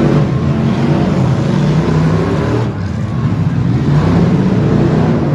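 Stock V8 car engines running and revving during a demolition derby heat, their pitch rising and falling, with a brief dip about two and a half seconds in.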